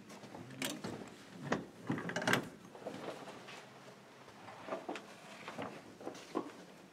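A brass doorknob is turned and a door is opened, with a series of sharp latch clicks and knocks in the first couple of seconds. A few softer knocks follow later.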